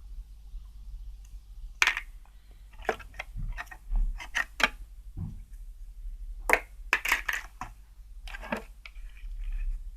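Irregular clicks, knocks and light clatter of a radio's casing and small parts being handled and moved about, with a few sharper knocks scattered through.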